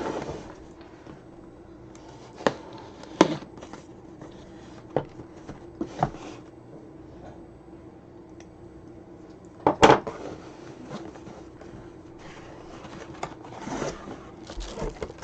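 A cardboard box being handled and opened: scattered clicks and knocks, one louder knock about two thirds of the way through, and rustling near the end, over a faint steady hum.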